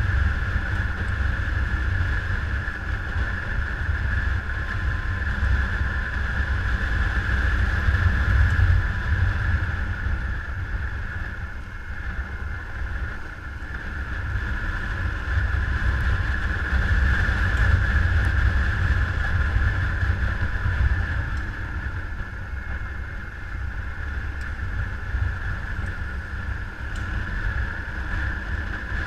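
Motorcycle engine running steadily under a low rumble of wind noise on the microphone while riding, the level swelling and easing slowly.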